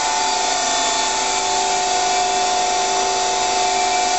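Daewoo Puma 6G CNC lathe's spindle running freely at speed, a steady whine of several tones over even machine hum. It sounds pretty good: a smooth, healthy spindle.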